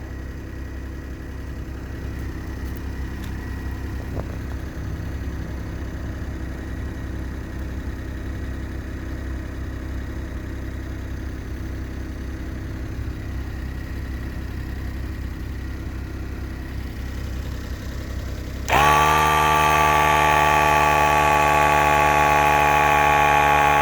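A car engine idling with a steady low rumble, then about three-quarters of the way in the small 12-volt air compressor from the Smart ForTwo's tire repair kit switches on, much louder, running with a steady buzzing drone as it pumps up a low tire.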